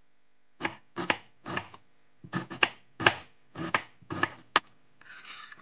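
Knife chopping red onion on a wooden cutting board: irregular sharp chopping strokes, about three a second, starting about half a second in, followed by a short scrape near the end.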